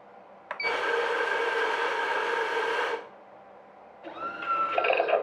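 Espresso machine's pump switching on with a click and running steadily for about two and a half seconds, then stopping; about a second later it starts again, rising and wavering, as the shot begins to brew.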